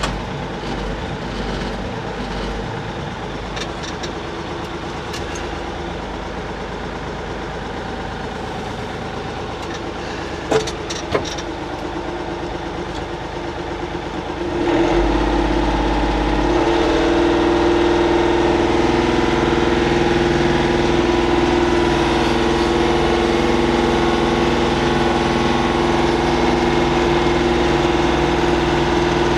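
Kioti tractor's diesel engine running as the tractor is driven, with a couple of sharp knocks about ten seconds in. About fifteen seconds in the engine speeds up and gets louder, then holds steady at the higher revs.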